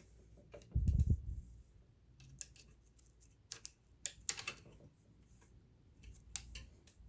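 Scattered light clicks and scrapes from hands working on a vintage all-metal sewing machine as it is cleaned, with a dull thump about a second in and a cluster of sharper clicks around the middle.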